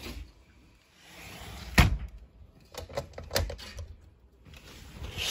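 A single sharp knock about two seconds in, then a quick run of lighter clicks and taps, and a short hiss near the end.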